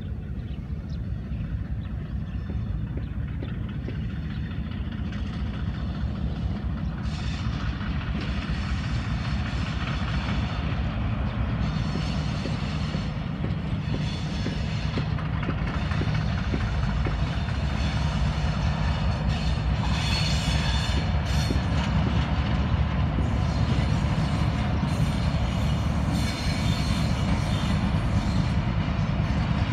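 Pakistan Railways HBU-20 diesel-electric locomotive approaching with a passenger train: a steady low engine drone that grows louder as it nears. Wheel and rail noise from the coaches builds in over the second half.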